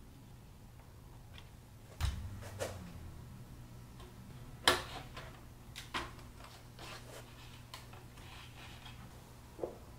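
A few light clicks and knocks from a hard 3D-printed plastic RC car body being handled and set down onto its chassis, the sharpest knock about halfway through.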